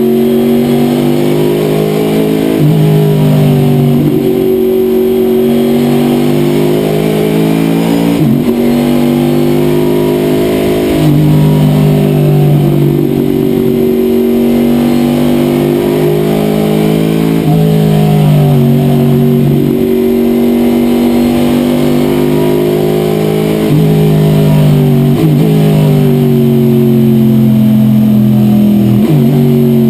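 V8 race engine of a Corvette C6 sports sedan, heard from inside the cockpit as it is driven hard on a circuit. The pitch climbs under acceleration and falls away into the braking zones, with several quick throttle blips on the downshifts.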